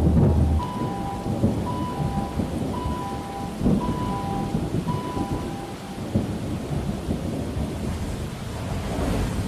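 Lofi hip hop backing track with a rain-and-thunder ambience: steady rain crackle and low rumble under a soft melody of short notes alternating between two pitches about once a second. The deep bass note drops out about half a second in.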